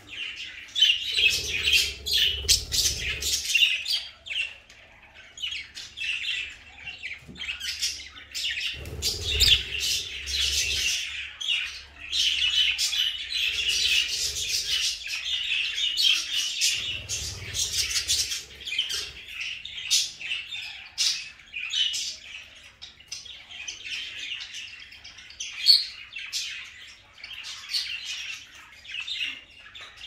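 A small flock of caged budgerigars chattering and warbling, a dense run of rapid chirps and squawks. Three brief low rumbles sound underneath: near the start, about nine seconds in and about seventeen seconds in.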